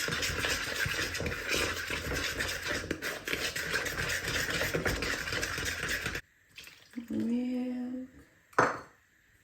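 Rapid, scratchy whisking in a mixing bowl while making cake batter, cutting off suddenly about six seconds in.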